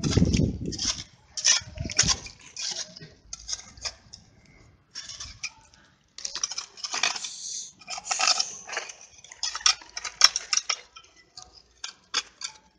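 A small hand tool scraping and digging into dry, stony soil to make a planting hole, with pebbles clinking, in an irregular run of scrapes and clicks. A low rumble sounds during the first second.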